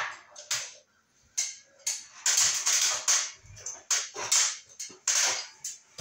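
A man climbing down an aluminium ladder: a run of irregular scrapes, rustles and clatters, loudest in the middle.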